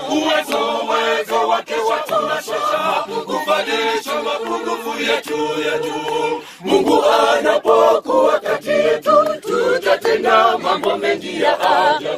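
A choir singing without instruments, several voices together, with a short break about six and a half seconds in.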